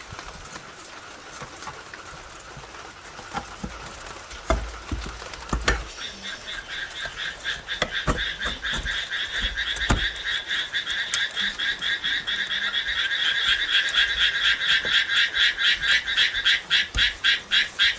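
An animal calling in fast, evenly repeated pulses, several a second, starting about six seconds in and growing steadily louder. Scattered clicks and a few dull knocks of metal parts being handled come underneath.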